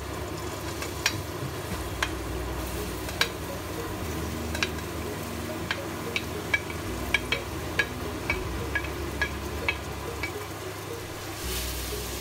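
Diced onions and garlic sizzling in hot oil in a stainless pressure cooker pot, with a wooden spoon scraping them off a plate and stirring, and a dozen or so sharp irregular ticks and pops. A kitchen exhaust fan runs steadily underneath.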